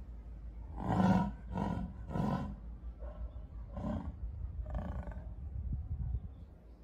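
Jaguar's sawing call: a series of about six hoarse grunts, a little over half a second apart, the first three loudest.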